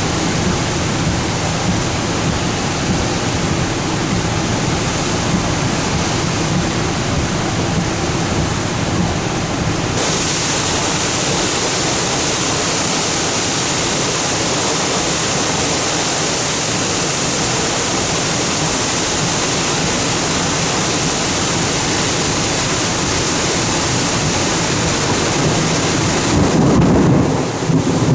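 Steady hiss of rain and wind in a thunderstorm, which turns abruptly brighter and stronger about ten seconds in. Near the end a louder low rumble of thunder rises.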